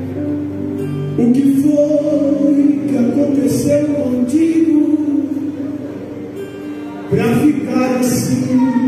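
Gospel hymn sung by a male singer over instrumental backing, in long held notes; one phrase starts about a second in and another about seven seconds in.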